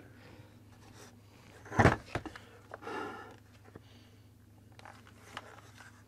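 Plastic handling noises from a Shark Navigator NV201 vacuum's floor nozzle being turned over by hand: one knock about two seconds in, then a few light clicks and a rustle, over a faint low hum.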